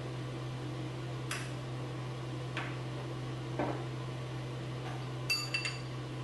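Light clinks of tableware: a few soft taps, then a pair of bright ringing clinks about five seconds in, over a steady low hum.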